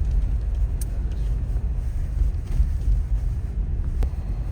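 Steady low rumble of a car in motion, heard from inside the cabin: engine and tyre noise while driving.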